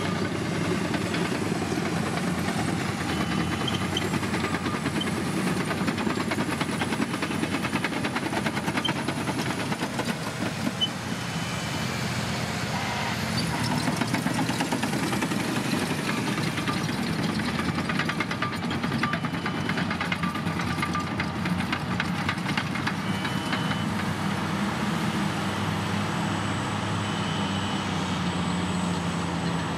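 Diesel engines of heavy Caterpillar earthmoving machines (scrapers and bulldozers) running steadily under load, a low even engine sound with scattered clicks and clatter.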